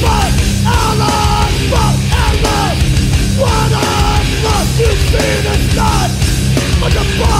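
Heavy hardcore metal song playing loud and steady: distorted guitars and drums over a thick low end, with bending pitched notes above.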